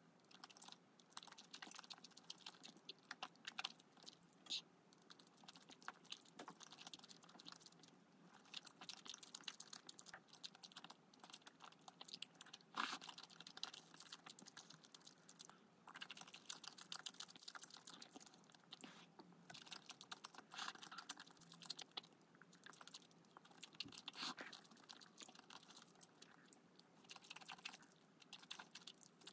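Close-up chewing and crunching of food: a dense, irregular run of small mouth clicks and crunches, one sharper crunch about halfway through.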